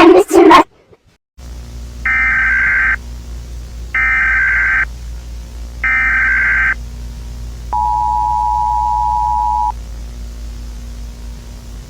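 Emergency Alert System–style alarm: three short bursts of SAME header data tones, about a second apart, then the two-tone EAS attention signal held for about two seconds, over a steady hiss.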